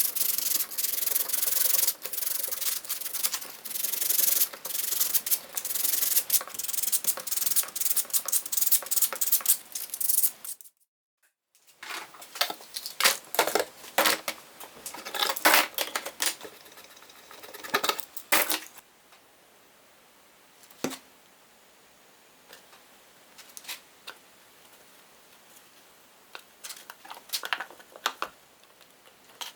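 Hand sanding wood with sandpaper: quick, irregular back-and-forth rubbing strokes with no motor hum. They break off about ten seconds in, resume, and stop after about eighteen seconds, leaving only a few light clicks and taps.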